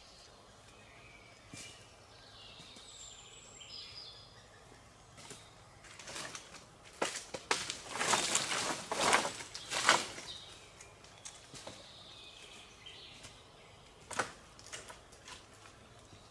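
Dry branches being pulled out of a brush pile: a few seconds of loud rustling and twig cracking in the middle, with wild birds singing before and after.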